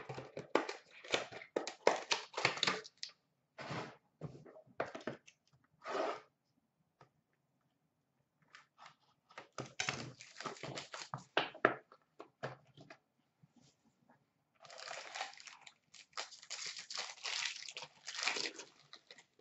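Upper Deck Ultimate hockey card box and its foil pack wrapper being torn open and crumpled by hand, in several bursts of rustling and tearing with short pauses between.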